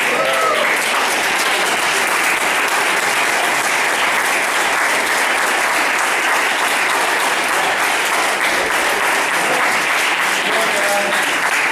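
Crowd applauding steadily, with a few voices calling out about the start and again near the end.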